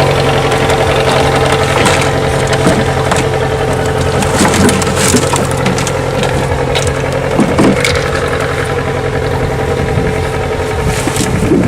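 A small engine running at a steady idle, with scattered crackles and knocks over it. The engine note cuts off near the end.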